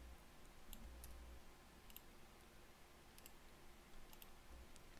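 Faint computer mouse clicks over near-silent room tone: about five pairs of short clicks, spread over a few seconds.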